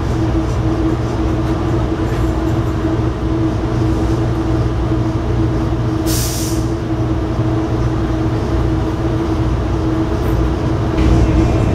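Metrolink commuter train making a steady low rumble with a constant hum, and a short hiss about halfway through.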